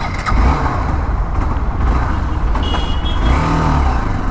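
Road noise from riding off on a motorcycle: a steady low rumble of engine and wind. A short high beep sounds near the middle, and a brief low tone follows about a second later.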